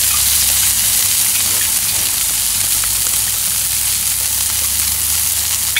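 Oiled whole crucian carp and bream sizzling steadily on a hot grill grate over charcoal, with a few faint crackles.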